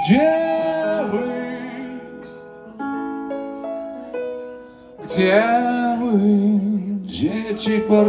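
Live rock band: a male voice sings a held note with vibrato, then the music thins to a quiet run of piano-tone notes on a Nord Stage keyboard. Singing returns about five seconds in, and the full band comes back in near the end.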